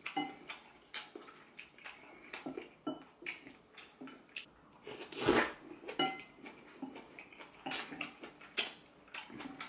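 Close-up eating sounds: chopsticks clicking against a ceramic plate and bowls, with wet mouth noises of eating and one louder slurp about five seconds in.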